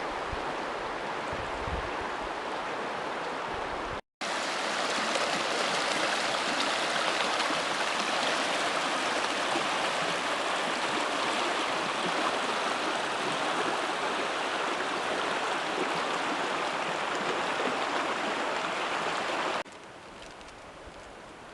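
Rushing water of a mountain creek, a steady rush. It breaks off for an instant about four seconds in, comes back louder, and drops to a quieter rush near the end.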